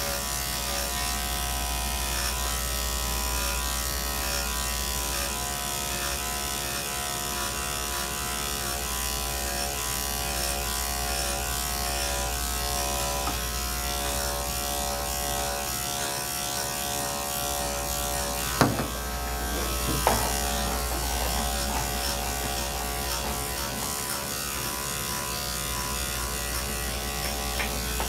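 Electric dog-grooming clipper running steadily as it is pushed through a dog's coat. Two short sharp knocks come about two-thirds of the way through.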